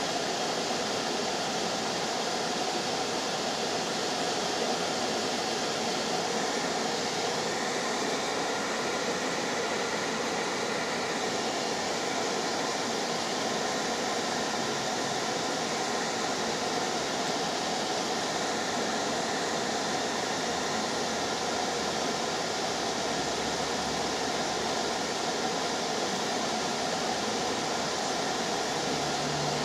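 Steady, even rushing noise inside a stopped car with street traffic around it, and a low engine hum that comes in near the end.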